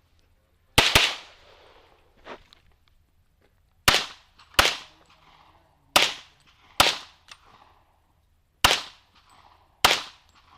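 A competition pistol fired rapidly during a shooting stage, about nine sharp shots mostly in close pairs, each with a short echo trailing off.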